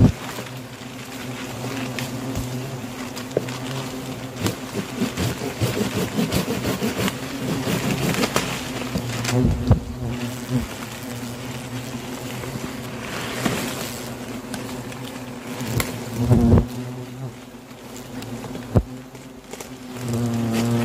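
Many black-backed hornets (Vespa velutina) buzzing steadily around a disturbed nest, with plastic-bag and leaf rustling and a few sharp snaps as the nest is bagged on the branch.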